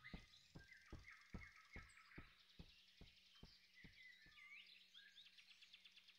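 Near silence: faint forest ambience with soft bird chirps, and a run of quiet ticks about two a second that fade away.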